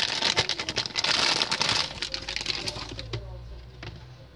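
Clear plastic packaging bag crinkling loudly for about two seconds as it is handled, then fainter rustling and small clicks of handling that die away toward the end.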